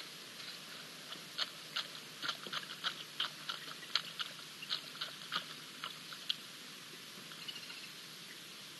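African wild dog lapping water: a run of short wet clicks, about two to three a second, uneven in strength, that stops a little past halfway.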